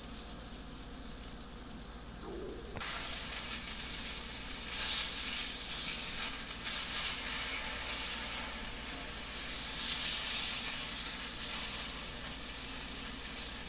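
Flour-coated chicken tenders sizzling in hot oil in a cast-iron skillet, a steady frying hiss that becomes louder about three seconds in.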